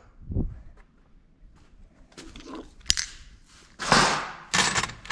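Hand tools being handled and put away: scattered clicks and a knock, then two louder scraping clatters about four seconds in.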